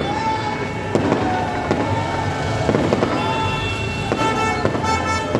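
Firecrackers bursting in sharp bangs about once a second, over loud music with a melodic line.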